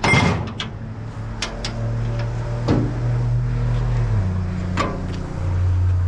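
Vehicle engine running at a steady idle, its note dropping about four seconds in and shifting again a second later, with a loud clatter at the start and a few sharp knocks and clicks.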